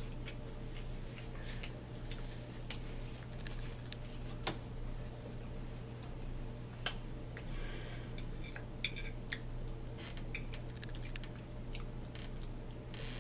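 Eating at the table: scattered light clicks and taps of a fork against a plate, with soft handling of the food, over a steady low hum.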